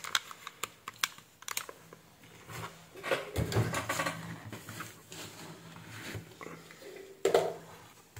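Plastic computer mouse buttons clicking several times in quick succession. This is followed by a longer, louder stretch of rustling and knocks from handling on the bench, and a sharp knock near the end.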